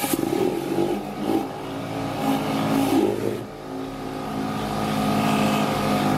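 Kärcher K5 electric pressure washer running, its motor and pump whining steadily under a hiss of water jetting through a rotary surface cleaner on wet decking. The sound starts suddenly, swells and dips in level, and cuts off abruptly at the end.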